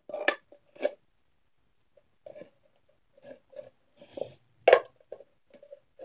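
Plastic pop tube fidget toy being stretched and bent, its ribbed sections giving a scatter of short clicks and pops, with one louder pop about two-thirds of the way through.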